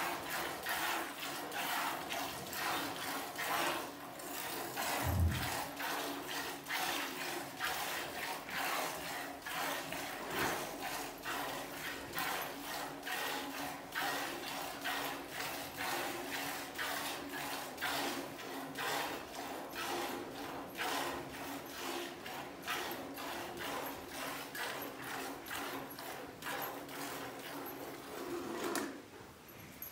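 Milk squirting from a cow's teats into a steel pot during hand milking: a quick, even run of rhythmic hissing squirts. A single low thud about five seconds in.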